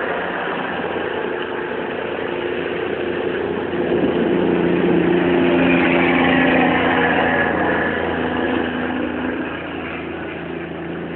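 A motor vehicle's engine running with a steady hum over a continuous hiss. It grows louder about four seconds in and eases off again near the end.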